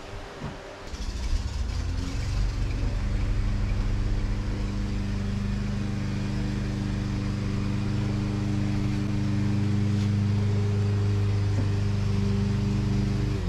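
Vintage Robbins & Myers electric fan switched on and running: a steady motor hum with blade whir that builds up about a second in and cuts off near the end.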